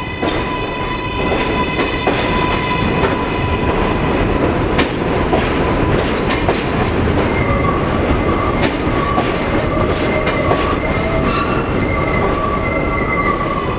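Kawasaki R142A subway train running along the platform and slowing as it pulls in: a steady propulsion whine for the first few seconds, wheels clattering over rail joints, and wheels squealing on and off in the second half.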